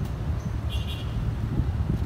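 Low, steady rumble of street traffic and wind on the microphone, with one brief high chirp about a second in.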